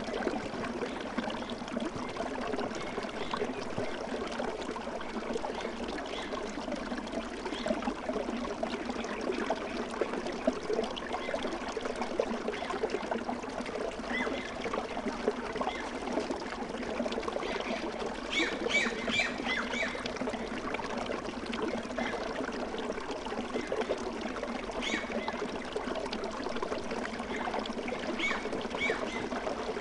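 Steady babbling of flowing water, like a small stream, with a run of short high chirps about two-thirds of the way through and a few more near the end.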